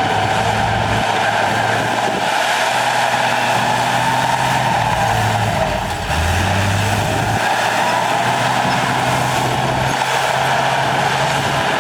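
Heavy diesel earthmoving machinery running steadily. The engine note shifts in pitch about halfway through, over a constant noisy mechanical rush.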